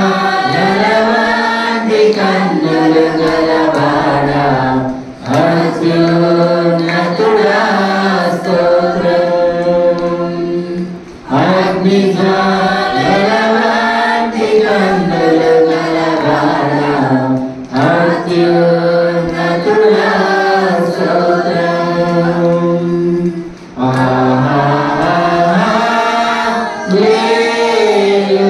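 A man singing an unaccompanied worship song into a microphone, in long held phrases with short breaks for breath about every six seconds.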